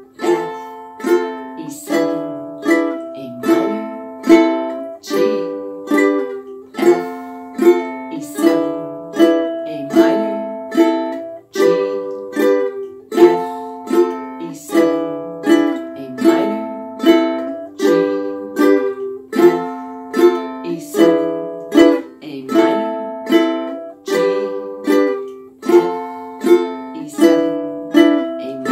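Ukulele strummed with steady down strums, two on each chord, cycling through A minor, G, F and E7.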